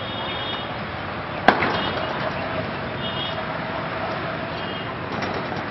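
Steady outdoor town ambience, with a single sharp crack about a second and a half in and a few faint high chirps.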